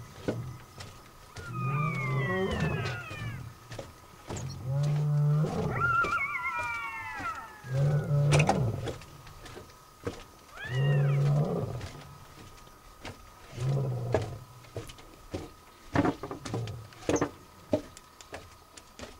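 Lion roaring: a series of deep, drawn-out roars a few seconds apart, giving way near the end to shorter grunts. A faint steady high tone runs underneath.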